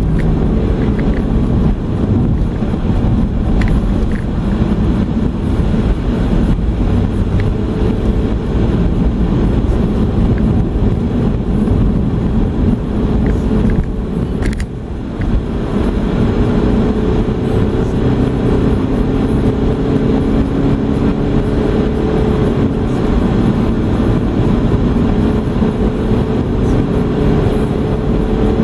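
A car's engine and tyre noise heard from inside the cabin while driving along at a steady pace. The engine note climbs slowly in the second half, with a brief dip and a click about halfway through.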